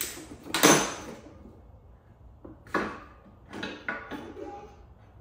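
Clunks and knocks of a Sur-Ron electric dirt bike's rear wheel and swing arm being worked loose and pulled off the frame, a handful of separate knocks with the loudest about a second in.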